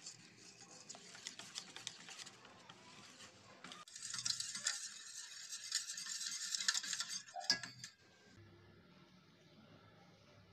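Wire whisk beating a gram-flour and yogurt batter in a stainless steel bowl: quick scraping and clicking of the wires against the metal. It gets louder about four seconds in, then stops a couple of seconds before the end, leaving only a faint low hum.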